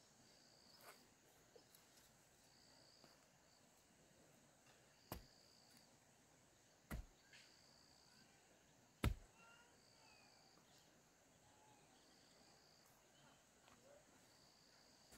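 Faint outdoor ambience: an insect chirping in short bursts about every two and a half seconds over a steady high insect hum. Three sharp knocks stand out, the loudest about nine seconds in, with a few faint bird calls after it.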